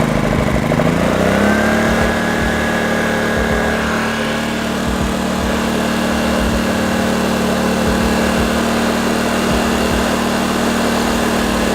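Small petrol generator engine, just started, running. Its revs rise over the first second or so and then hold steady.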